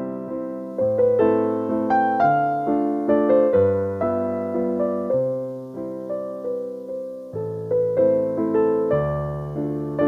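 Background piano music: a gentle melody of struck, decaying notes over slowly changing chords.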